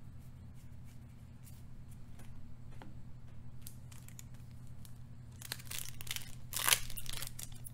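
Foil wrapper of a Magic: The Gathering booster pack crinkling as it is gripped and torn open, starting about five and a half seconds in. Before that there are faint light taps of cards being handled and set down.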